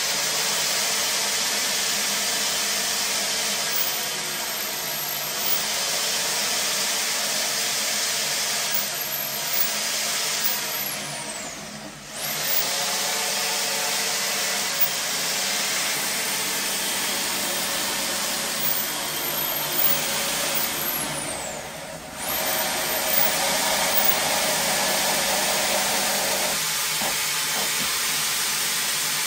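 High-pressure water drain-jetting machine running steadily as its jet hose is fed down a floor drain to clear a blockage. The noise dips briefly twice, about twelve and twenty-two seconds in.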